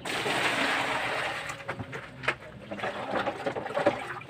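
Water poured from a plastic bucket into a plastic basin, a strong gush that starts suddenly and lasts under two seconds. Then hands slosh and splash in the basin water, rinsing a snakehead fish.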